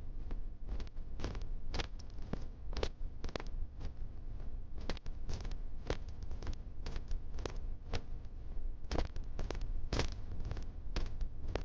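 Military boots marching on a hard surface: a squad's footfalls striking about two to three times a second, not quite in unison, over a steady low rumble.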